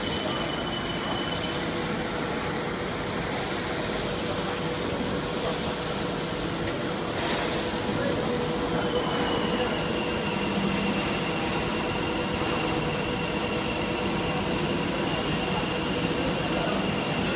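Film blowing machine running: a steady mix of motor, roller and blower noise with a thin high whine on top.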